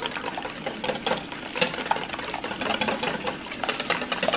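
Wire balloon whisk beating eggs and milk in a stainless steel bowl: a rapid, steady clicking and scraping of the wires against the metal.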